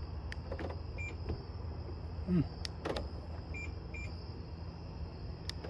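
Short high electronic beeps, one about a second in and two in quick succession later, with a few faint sharp clicks over a low steady hum, as a BMW X5's door locks are tested after a blown lock fuse was replaced.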